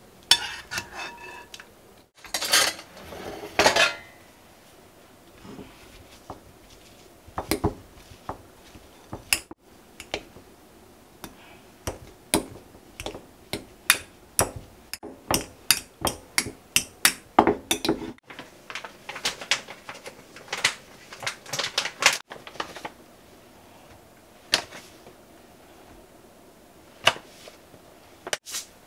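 Metal potato masher knocking against a glass mixing bowl as boiled potatoes are mashed by hand: a run of sharp clinks, about two to three a second, some in quick clusters. Near the start there is louder clattering as a metal strainer ladle lifts potatoes into the bowl.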